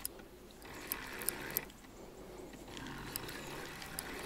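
Fishing reel being cranked in two spells, a mechanical whirring with fine clicks, as a hooked fish is reeled in.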